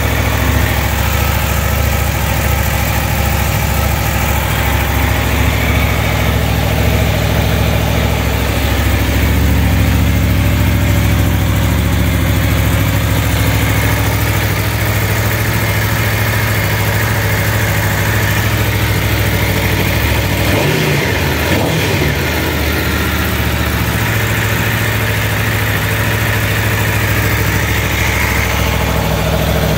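Aprilia Tuono V4 1100 RR's 1077 cc V4 engine idling steadily just after a cold start, running smoothly with no ticks in the motor.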